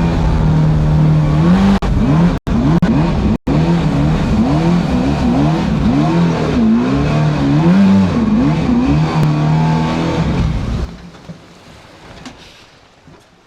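Small creek boat's motor running with a steady pitched hum, its pitch rising and falling over and over as the throttle is worked. The sound cuts out briefly twice a few seconds in, and the motor stops about eleven seconds in.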